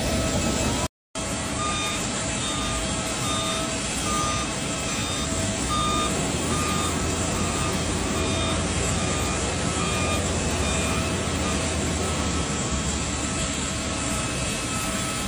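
Steady engine noise with a vehicle's reversing alarm beeping in repeated runs of short beeps, as the aircraft lavatory service truck manoeuvres. The sound cuts out completely for a moment about a second in.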